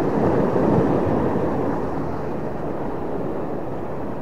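Steady rushing noise of wind and sea at the water's edge, a little louder in the first second.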